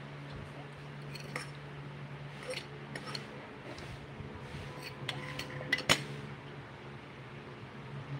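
Dishes and utensils clinking and knocking: a scatter of separate clinks, some briefly ringing, with the loudest just before six seconds in, over a steady low hum.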